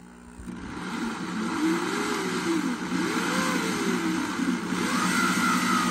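A corded electric drill starts up and runs a hole saw into the plastic wall of a cat-litter bucket. Its whine wavers up and down in pitch as the saw bites and eases.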